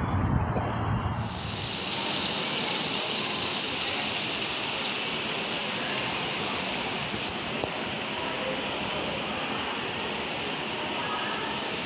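A brief low rumble of wind on the microphone, then, from about a second in, a steady rush of water running over rocks in a shallow koi pond stream.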